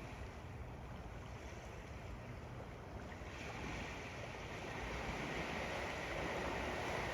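Ocean waves washing up on a sandy beach, a steady surf hiss that swells about three seconds in as a wave comes in.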